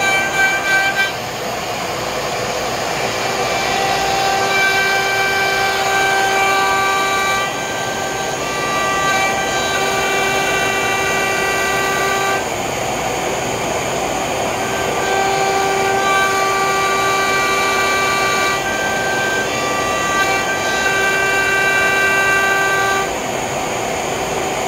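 Romaxx WD-1 CNC router cutting grooves in a hardwood board. The router spindle's noise runs over dust-extraction hiss. A steady pitched whine from the Nema 23 stepper motors holds for several seconds during each pass and breaks off briefly between passes, about four times.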